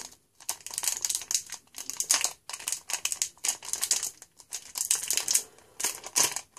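Foil wrapper of a football trading-card pack being torn open and crinkled in the hands, in short bursts of crackling with brief pauses between them.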